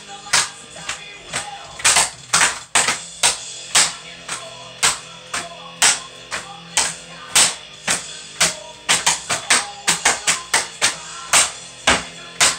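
Drumming played with cardboard paper towel rolls: a run of sharp hits about two a second, packed closer together about nine to eleven seconds in, over steady low tones.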